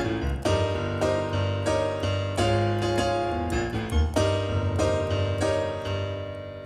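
Solo piano playing an instrumental, chords struck one after another over a held low bass.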